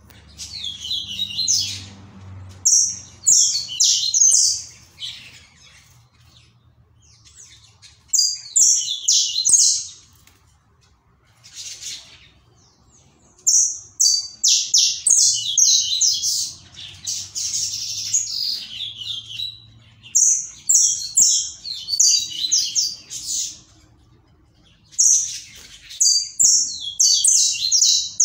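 Saffron finch (canário-da-terra) singing: phrases of rapid, high-pitched notes, some short and some running several seconds, repeated about six times with brief pauses between.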